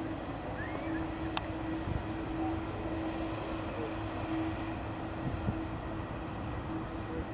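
Airbus A330-200's General Electric CF6 turbofans at taxi power: a steady low rumble with a constant hum. A single sharp click about a second and a half in.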